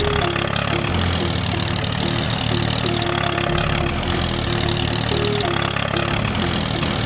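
Small engine running steadily at idle.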